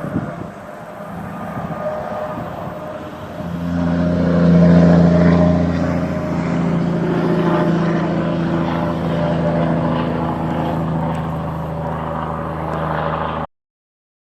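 A steady engine drone that gets louder about three and a half seconds in, then eases off slowly, and cuts off suddenly near the end.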